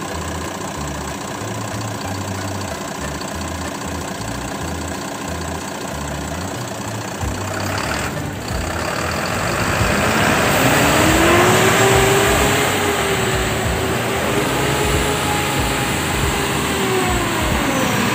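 Mitsubishi Fuso 10-wheeler truck's diesel engine idling, then revved about nine seconds in and held at higher speed with a rising whine, dropping back near the end.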